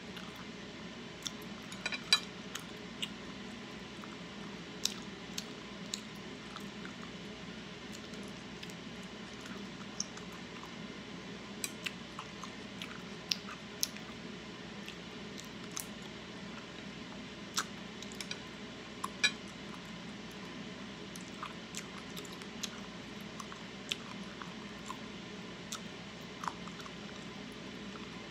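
Close-miked chewing of cooked octopus: irregular wet mouth clicks and squishes, some sharp and loud, over a steady low hiss.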